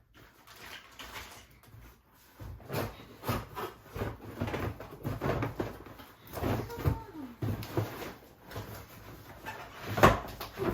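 Rustling and knocking of toy parts and plastic and cardboard packaging being handled and pulled out of a box, with a sharper knock near the end.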